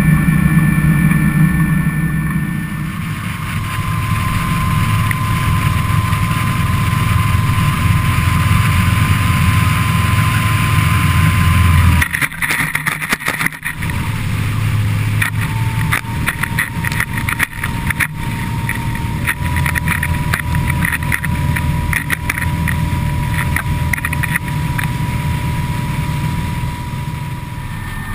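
The Yanmar 370 hp V8 diesel of an XO 270 RS powerboat running at speed, with water rushing past the hull. About twelve seconds in the sound changes suddenly, and from then on spray and water slaps strike the microphone in quick irregular knocks over the engine.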